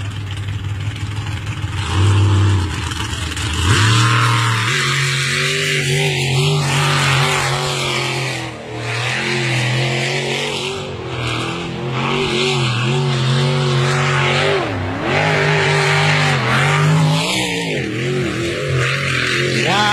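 Jet sprint boat's engine running hard at racing speed, its pitch repeatedly rising and dipping as it revs through the turns of the channel course.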